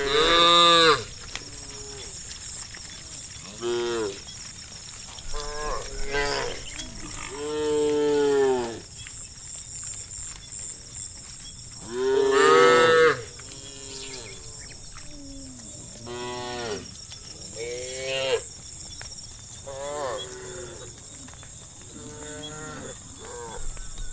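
A herd of cattle mooing: about a dozen separate calls, some overlapping, each rising and falling in pitch, the loudest near the start and about halfway through. A steady high hiss runs underneath.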